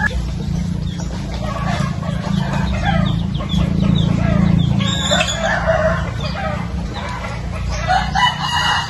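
Chickens clucking and calling, with many short calls in quick succession over a steady low rumble.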